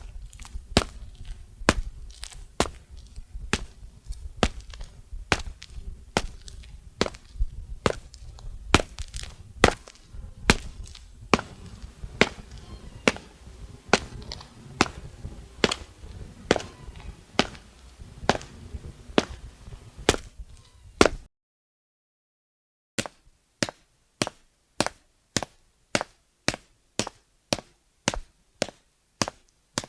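Footstep sound effects: a walking rhythm of sharp steps, about two a second, over a low rumble. After a short silence about two-thirds of the way in, a second, cleaner run of steps follows at a similar pace with no rumble.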